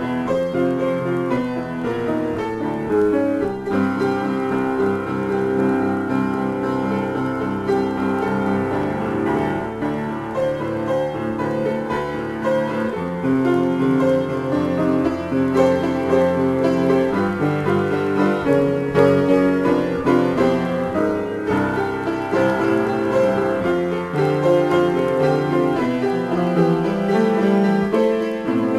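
Piano improvisation: full chords over changing bass notes with a moving upper line, played continuously without a break.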